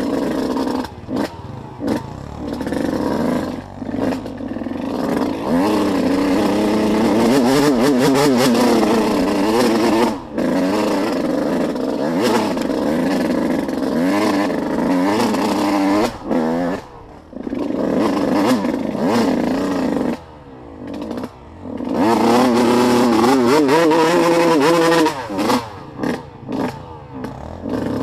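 Off-road vehicle engine under changing throttle on a trail, its pitch rising and falling, cut back sharply several times between longer hard pulls around eight and twenty-three seconds in.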